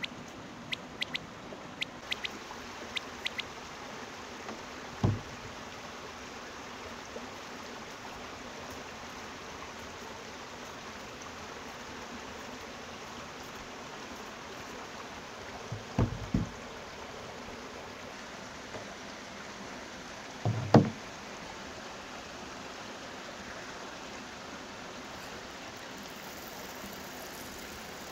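Potatoes being peeled by hand with a knife, the peel snapping in crisp little clicks over the first few seconds. Then three dull knocks on wood, about 5, 16 and 21 seconds in, the last the loudest, as of peeled potatoes set into a wooden bowl. Near the end comes a faint rustle of dried coriander seeds pouring into a stone mortar, all over a steady background hiss.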